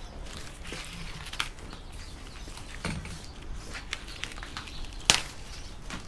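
Enerpat manual wire stripper cranked by hand, stripping a thick scrap copper cable: irregular clicks and scraping, with one sharp knock about five seconds in.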